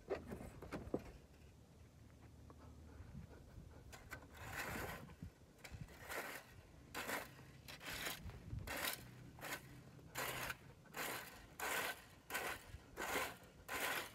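A rake scraping through dry grass and dirt in quick repeated strokes, about one and a half a second, starting about four seconds in.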